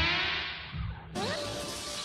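Dramatic background score from an animated series. A long falling tone dies away, then after an abrupt cut a single held note sustains under the music.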